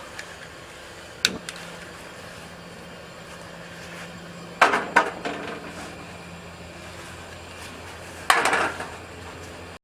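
Several sharp knocks and clatters of objects being handled: one about a second in, two loud ones close together about halfway, and a longer rattle near the end, over a steady low hum.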